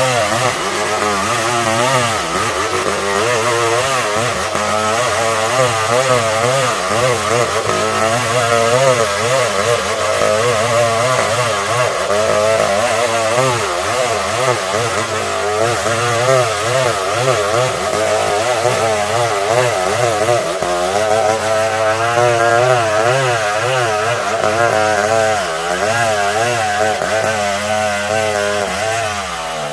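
Stihl 070, a big two-stroke chainsaw, running under load as it rips a log lengthwise into planks. Its engine note wavers up and down as the chain bites, and near the end the speed dips briefly and then climbs again.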